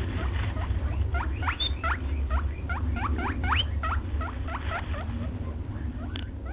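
Small animals squeaking in a quick series of short, upward-sweeping squeaks, about two to three a second, as they wrestle. The squeaks thin out near the end, over a steady low hum.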